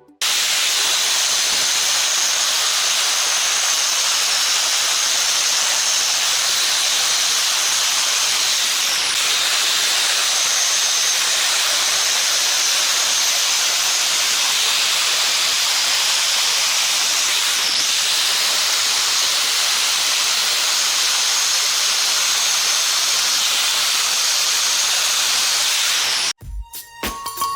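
A loud, steady hiss, like air or fluid forced out under pressure, starting abruptly and cutting off suddenly near the end.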